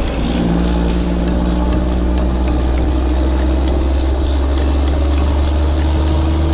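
A vehicle engine running steadily with a deep, even drone, and faint scattered ticks over it.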